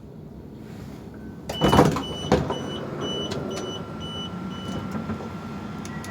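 Bombardier Electrostar train's sliding passenger doors operating: a loud burst of noise from the door mechanism about a second and a half in, with the door warning beeping about twice a second for a few seconds.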